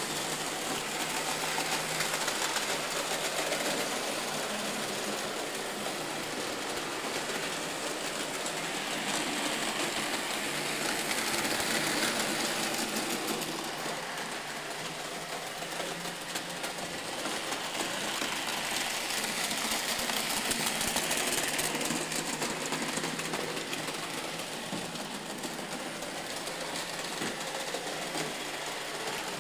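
Märklin model trains running on the layout's metal track: a steady mechanical whir and clatter of small motors and wheels, slowly growing louder and softer.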